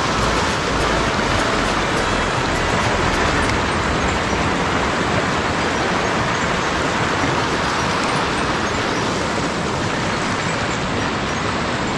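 Steady rush of creek water, an even hiss with no let-up.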